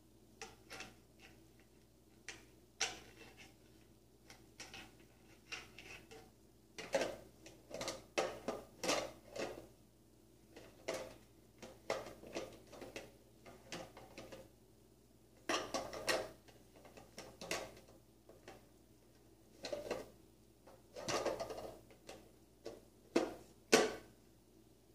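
Small plastic blocks clattering and knocking against a plastic shape-sorter bucket and its lid as they are handled and pushed into the holes: irregular clicks and taps in little clusters, the loudest near the end.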